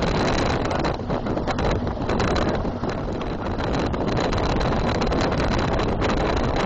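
Wind rushing over the microphone of a moving vehicle, with its engine and road noise underneath.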